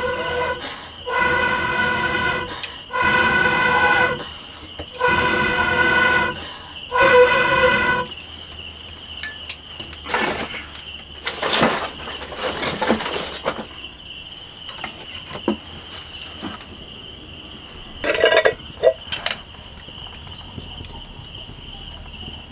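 Someone blowing hard through a long blowpipe into the firebox of a clay wood-fired stove to kindle the fire: about five long blows, each a pitched hooting note a second or two long, with short breaths between. After that, quieter clicks and crackles of firewood being handled in the stove, with a faint steady high tone.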